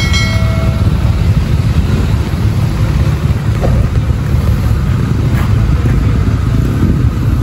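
Strong wind buffeting the microphone, a loud, steady low rumble, with a short ringing chime at the very start.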